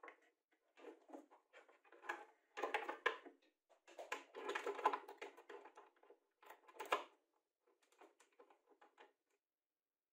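Steel turnbuckle, hook and wire-rope clip being handled and hooked up on a plywood base: irregular small metal clinks and rattles mixed with knocks on the wood, ending a second or so before the close.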